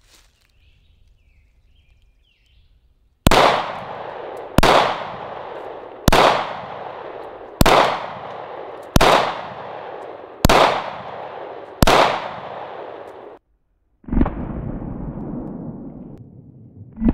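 Glock 23 pistol firing .40 S&W rounds, seven shots evenly spaced about a second and a half apart. Each shot rings out with a long echo. After a brief break, two more shots follow near the end.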